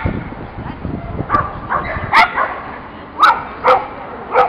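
A dog barking: a run of short barks, several in a row about half a second apart.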